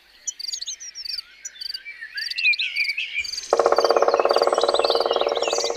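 Birds chirping with high, evenly repeated insect-like ticks, joined about three and a half seconds in by a louder, fast, even pulsing trill.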